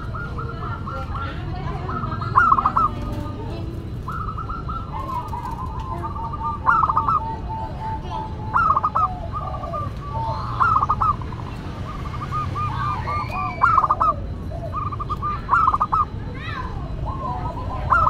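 Zebra dove (perkutut) singing: its rolling staccato coo phrase repeats about every two seconds, each ending on louder notes, over a steady low background rumble.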